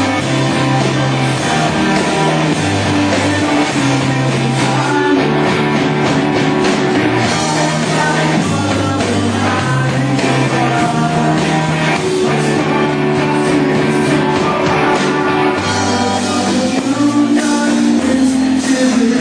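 Rock band playing live: electric guitar and a bass line stepping between held notes, with a voice singing.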